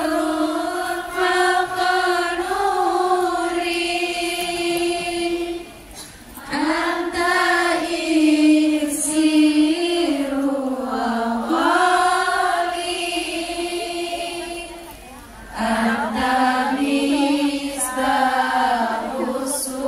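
A group of voices singing an Islamic devotional sholawat in unison, in long drawn-out held notes, pausing briefly twice, about six and fifteen seconds in.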